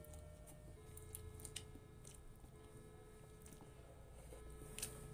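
Near silence: faint mouth clicks and soft squishy sounds of chewing spicy instant noodles, over a few faint held tones in the background that change note once, about three quarters of a second in.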